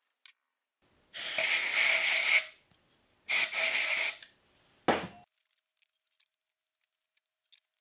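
Aerosol spray can sprayed through a red straw nozzle into the bore of a steel tailstock casting: two hissing bursts, the first about a second and a half long, the second about a second, followed by a short knock.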